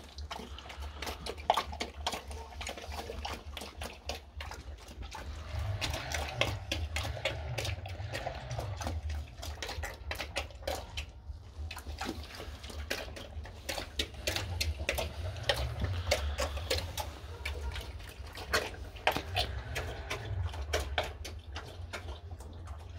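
Large pig eating wet slop from a trough: a continuous run of quick wet smacks, slurps and chewing clicks.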